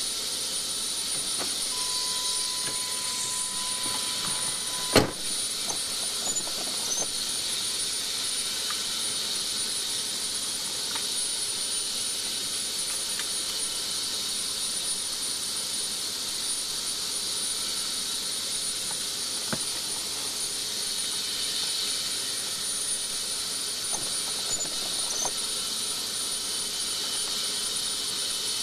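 Steady high hiss with a thin, high, steady tone over it, and one sharp click about five seconds in.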